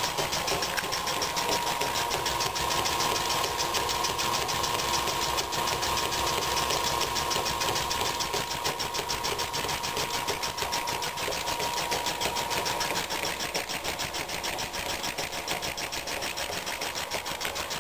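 Circa-1923 Brunner air compressor running, driven by its electric motor through a flat belt: a rapid, even pumping beat with a steady hum that fades about two-thirds of the way in.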